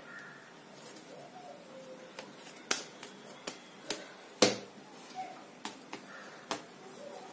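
Hands kneading soft bread dough on a countertop: about half a dozen sharp slaps and taps as the dough is pressed and knocked against the counter and rounded into a ball, the loudest about four and a half seconds in.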